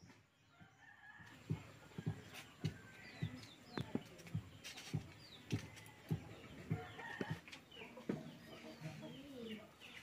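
Hens clucking in a steady run of short calls, about two a second, with small birds chirping.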